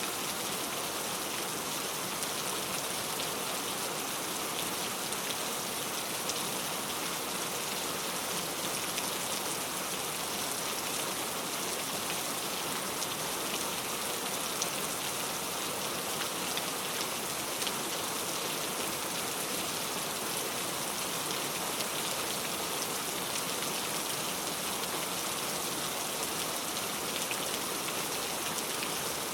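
Heavy rain falling on a road: a steady, even hiss of countless drops with no thunder.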